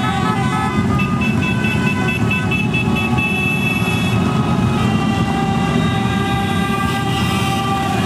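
Engines of a column of cruiser motorcycles rumbling steadily as they ride past in a procession. Steady high tones sound over the rumble, pulsing a few times a second early on and changing pitch about halfway through.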